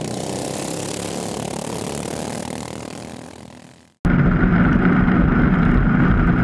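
Racing ride-on lawnmower engines. First several mowers are heard running past at speed, the sound fading away just before four seconds in. Then, after an abrupt cut, one mower's engine is heard loud and close, from on board, as a steady hum.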